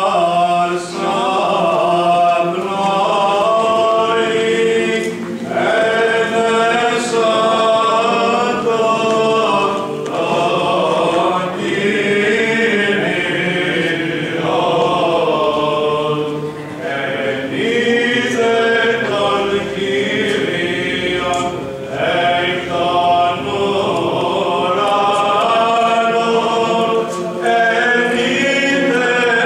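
Choir chanting an Orthodox liturgical hymn a cappella, in long held phrases with brief breaks between them.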